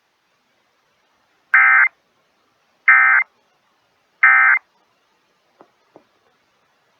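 Emergency Alert System end-of-message signal: three short bursts of buzzing digital data tones, about a second and a half apart, marking the end of the tornado warning. Two faint clicks follow near the end.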